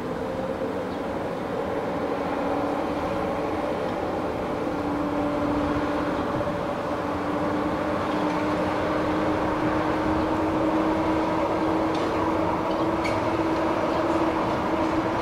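A train running on the track, with a steady whine from its motors. The whine rises slowly in pitch as the sound grows louder, and a few sharp clicks come near the end.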